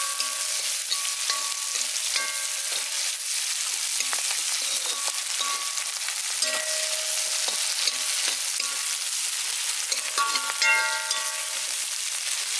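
Sliced onions, green chillies and curry leaves sizzling in hot oil in a metal wok, being sautéed to brown. A metal spoon stirs and scrapes through them, and the pan gives short metallic rings with the strokes every second or so.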